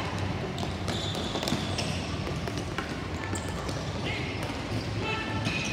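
Ball hockey play on a hard court: scattered sharp knocks of sticks and the plastic ball hitting the stick and the playing surface, over a steady low hum.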